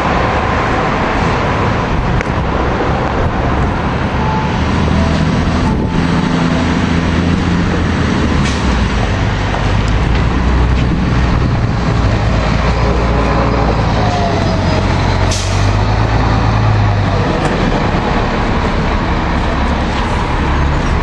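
Diesel city transit buses running at a bus terminal, engines changing pitch and load as they move. There are a few short sharp sounds about six, eight and fifteen seconds in.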